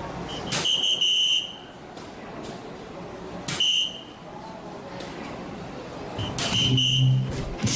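Electronic soft-tip dartboard registering three dart hits about three seconds apart. Each is a sharp click followed by a bright electronic beep tone. The hits score a triple 19, a single 18 and a double 18.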